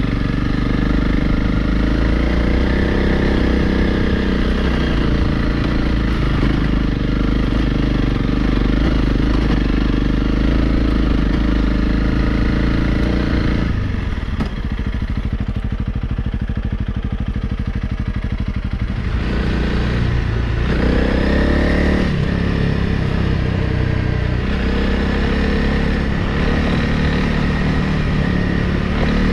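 Honda CRF Rally's single-cylinder engine running at steady revs while the motorcycle is ridden. About halfway through the revs fall off, then pick up again in a rising sweep and settle at a steady speed.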